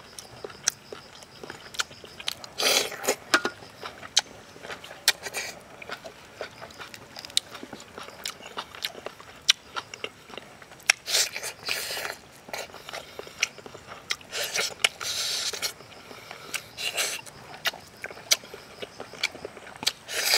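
Eating sounds: biting and chewing cooked water snake meat, with many sharp clicks and several louder bursts of about a second each.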